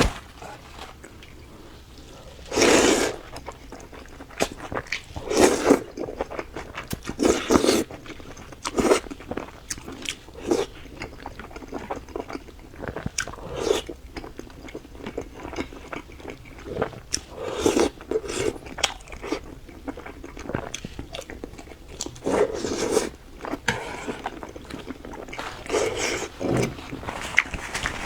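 Close-miked eating sounds of curry, fish and rice: wet chewing and biting, with louder bursts every few seconds.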